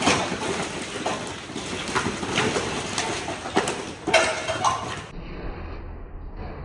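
Irregular sharp knocks and thuds over a noisy background. About five seconds in they stop, and a duller, steady low rumble takes over.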